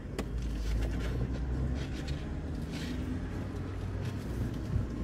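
Steady low rumble inside a car cabin, with scattered small clicks and a brief rustle a little under three seconds in, from people eating in their seats.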